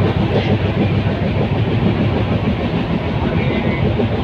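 Moving passenger train heard from inside a coach: a steady, loud rumble and rattle of the wheels on the track.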